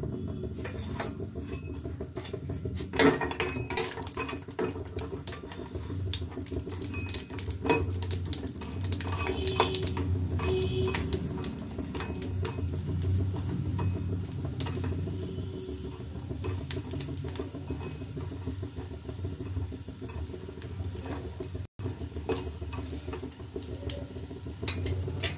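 Bori (dried lentil dumplings) frying in hot mustard oil in a kadai: a steady sizzle, with a spatula clinking and scraping against the pan again and again.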